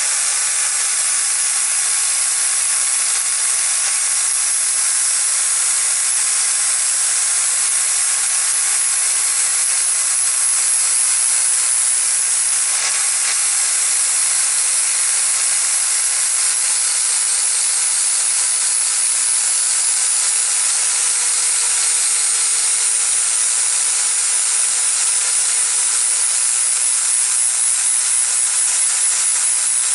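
Angle grinder running steadily while grinding steel to clean up welded joints, a constant grinding hiss with a faint steady whine of the motor.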